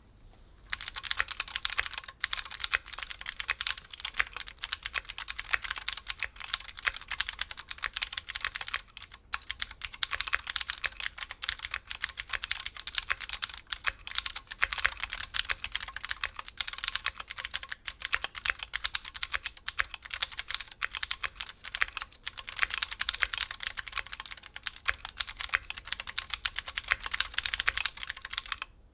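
Fast, continuous typing on a Keychron Q3 mechanical keyboard fitted with factory-lubed Gateron G Pro Blue clicky switches, a dense run of sharp key clicks starting about a second in.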